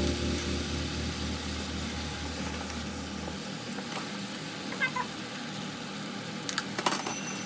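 Food sizzling in oil in a frying pan, a steady high hiss with a few light clicks and taps of utensils or the pan. Background music fades out at the start.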